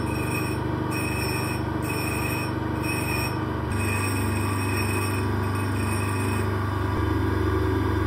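Homemade bench grinder's electric motor running steadily with a constant hum, while a high-speed steel tool blank is ground on its wheel. A higher grinding sound pulses about once a second for the first few seconds.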